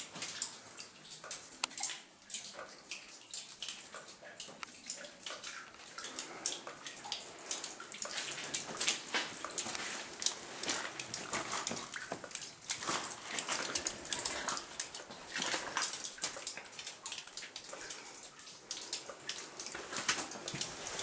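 Footsteps on the floor of an anthracite coal mine tunnel with water dripping and splashing, an irregular patter of sharp clicks and splashes.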